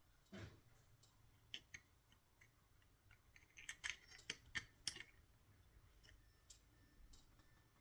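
Faint clicks and taps of small parts and tools being handled during servo mounting, with a quick run of sharper clicks around the middle.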